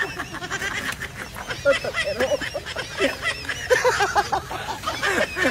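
Men laughing hard and helplessly, in many short, breathless, squeaky bursts that come unevenly.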